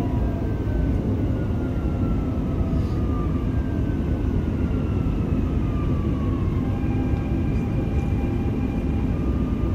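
Inside a Dubai Metro carriage, the train runs with a steady rumble while its motor whine glides down in pitch as it brakes into a station, then holds steady near the end.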